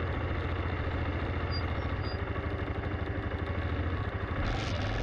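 Single-cylinder 652 cc four-stroke engine of a BMW F650 GS motorcycle running at low revs with steady, even pulses as the bike rolls slowly.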